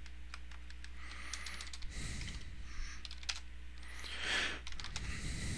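Computer keyboard being typed on: scattered, irregular key clicks as a login command and password are entered, with a soft hiss about two seconds in and again, slightly louder, about four seconds in.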